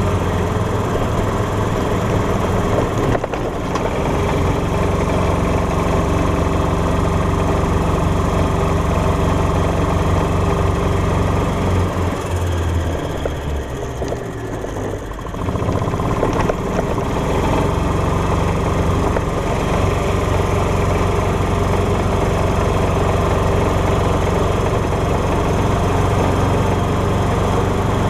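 Golf cart engine running steadily as the cart drives. About halfway through the engine sound drops away for a few seconds, then picks up again.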